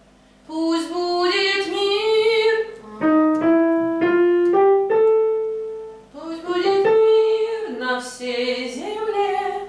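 A woman singing a melodic phrase, accompanied by a digital piano. The singing starts about half a second in, and in the middle comes a run of about five short notes climbing step by step.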